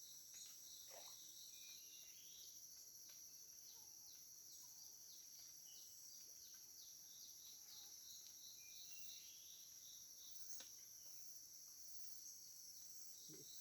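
Rainforest insect chorus: a steady high-pitched shrill with a row of short chirps about three a second, and a few brief bird whistles over it.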